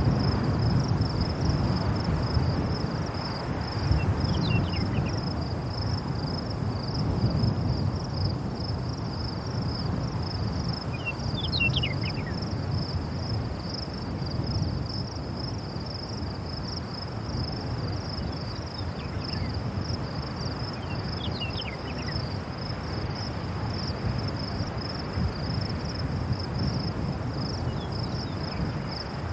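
Wind gusting over open fields, a low rumble that swells and eases, with a steady high-pitched insect trill running underneath. A few faint, short high chirps come through three times.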